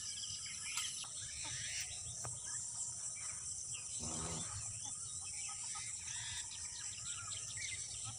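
Crickets chirring steadily, with scattered bird chirps and one short low call about four seconds in.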